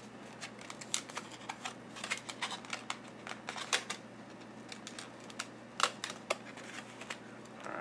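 Irregular light clicks and crackles of a foam-board control surface with tape on it being handled and turned over in the hands.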